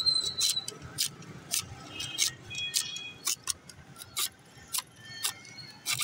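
Hand-lever sugarcane cutter chopping cane stalks into short pieces: the blade slices across the steel plate's opening in a steady run of sharp chops, about two a second.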